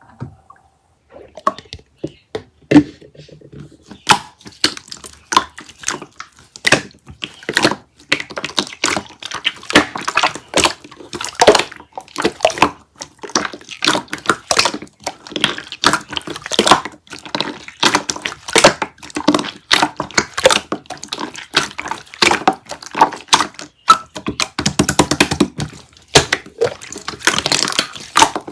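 Slime being squeezed and pressed by hand, making rapid sticky popping and squelching sounds, sparse at first and dense from about four seconds in.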